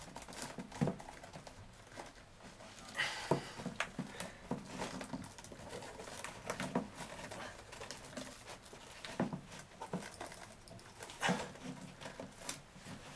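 Handling noise from a cloth vacuum bag and corrugated plastic fill tube being gripped and shifted while a plastic zip tie is fitted around them: irregular rustling with scattered sharp clicks and knocks.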